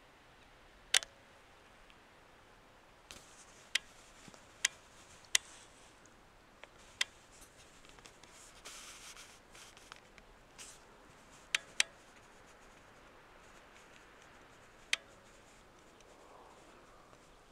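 Sharp clicks at irregular intervals, about eight in all, with a short rustle near the middle, over a faint steady hiss: handling noise on a handheld camera.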